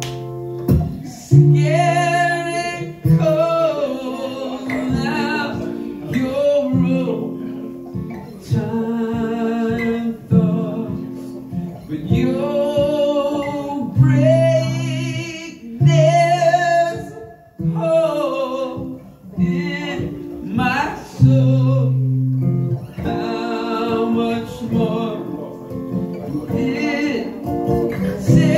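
A man singing with vibrato on held notes while playing an acoustic guitar, heard live.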